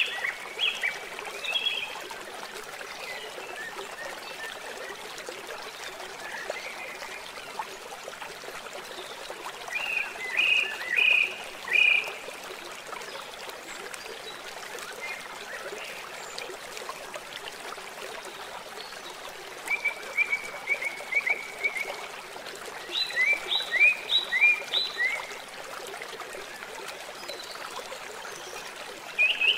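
Nature ambience: a steady rush of running water, with short phrases of quick, high chirping calls breaking in a handful of times.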